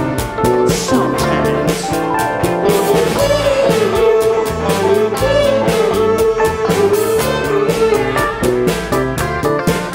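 Live band music with drum kit, electric guitars and keyboard playing an instrumental passage, a trumpet carrying a wavering melody line over it from about three seconds in.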